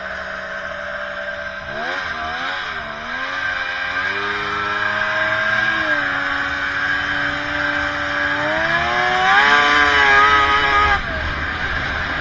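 Snowmobile engine running under throttle while riding. Its pitch wavers about two seconds in, steps up about four seconds in, climbs to its highest around nine to ten seconds, and drops suddenly about eleven seconds in.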